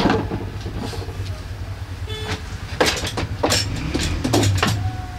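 Air rifles being handled on a glass shop counter: several sharp knocks and clatters over a steady low rumble. There is a short tone about two seconds in.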